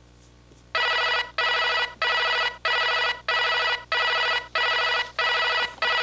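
Telephone ringing in a fast, unbroken run of short rings, about one and a half a second, starting about a second in.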